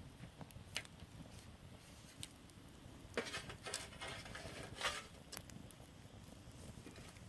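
Campfire crackling: scattered sharp pops from the burning wood, with a denser run of crackles in the middle.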